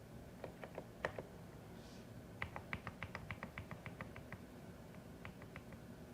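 Typing on a CIDOO ABM081 Stellar mechanical keyboard with Carda switches: a few scattered keystrokes, then a quick run of about fifteen keys in the middle, then a few more.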